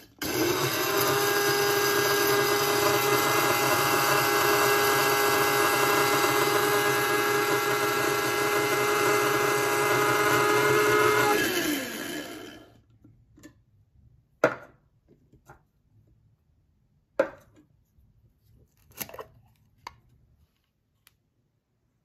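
DR MILLS DM-7452 electric blade coffee grinder running with a steady whine as it grinds coffee beans, held on by pressing down on its lid. It cuts out and starts again right at the beginning, runs for about eleven seconds, then winds down. A few sharp knocks and clicks follow as the grinder is handled and opened.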